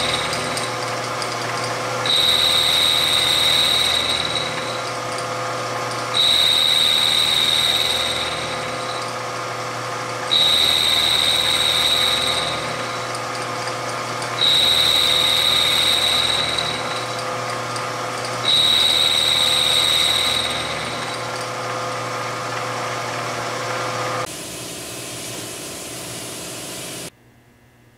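Milling machine end mill cutting the stainless-steel cylinder of a Smith & Wesson Model 686 revolver, turning it down for full moon clips. It goes in a repeating cycle about every four seconds: roughly two seconds of loud cutting with a high, steady whine, then quieter running. Near the end the cutting stops, the machine runs on more quietly, and then the sound cuts off suddenly.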